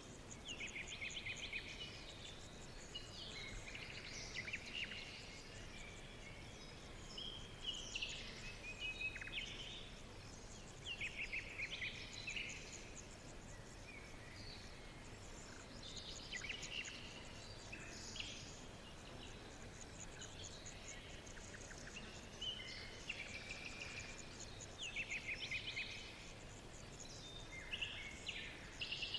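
Several songbirds singing, with short chirps and fast trills recurring every second or two over a steady background hiss.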